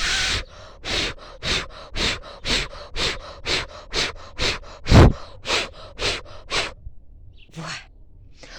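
Quick puffs of breath, about two a second, blowing at a dandelion seed head close to the microphone; the puff about five seconds in hits the microphone hardest.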